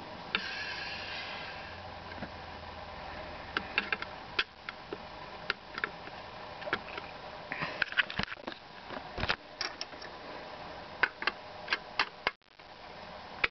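Old 3-inch sound-effects record playing: steady surface hiss with many scattered clicks and pops, and a brief hissing burst about half a second in. The sound drops out sharply near the end.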